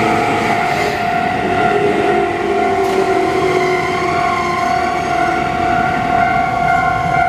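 Japanese level crossing alarm ringing continuously, two electronic bells of different pitch and tempo sounding out of step with each other, while an electric train runs through the crossing.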